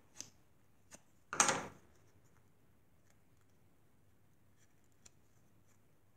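Light handling sounds of a small paper butterfly being curled between the fingers: a couple of small clicks, one louder brief rustle about a second and a half in, then a few faint ticks.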